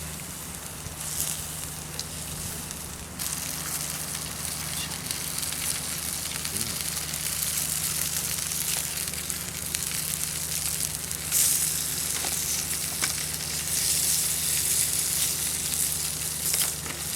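Food sizzling over a campfire, with the wood fire crackling. The sizzling grows louder about three seconds in and peaks briefly near the middle.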